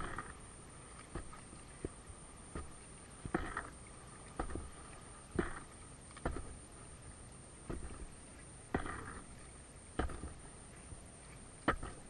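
Kayak paddle strokes on an inflatable kayak: a short splash with a sharp click about once a second, over a steady hiss of water and wind.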